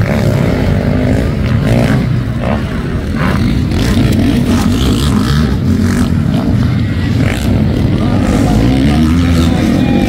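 Motocross dirt bike engines revving up and down as the bikes race around the dirt track, the pitch rising and falling over and over.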